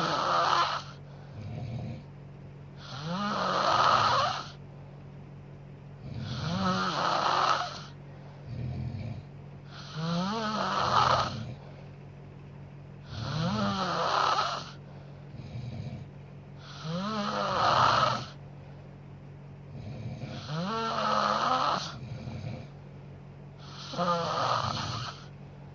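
A sleeping woman snoring in a steady rhythm: a loud, rasping snore about every three and a half seconds, each followed by a shorter, softer breath sound.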